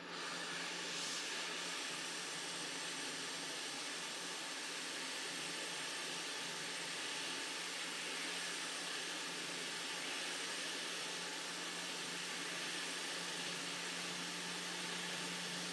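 Hot air rework station blowing a steady hiss of air at 360 °C onto a phone logic board, melting the solder under the touch IC so the chip can be lifted off.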